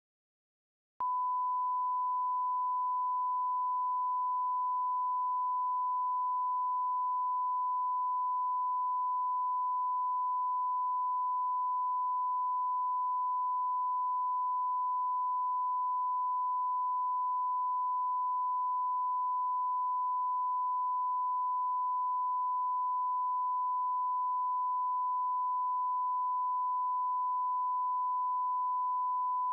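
Broadcast line-up tone played with colour bars: a single steady, pure 1 kHz reference tone that switches on abruptly about a second in and holds unchanged.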